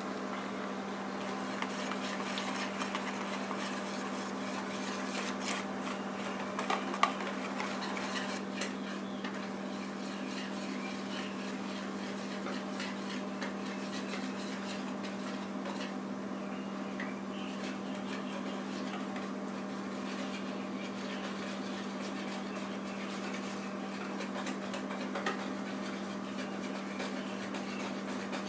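Pancake batter being beaten by hand in a bowl: a utensil clicking and scraping against the bowl, with one louder clack about seven seconds in.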